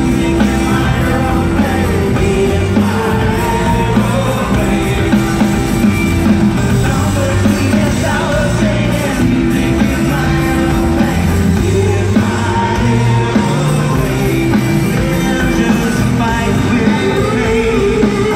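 Rock band playing live: drums, bass guitar and electric guitar, with a singer's voice over them.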